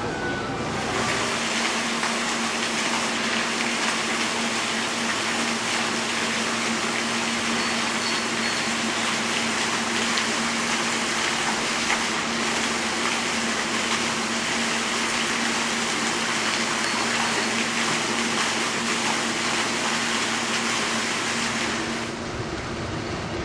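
Steady rushing water, an even hiss that starts suddenly about a second in and cuts off near the end.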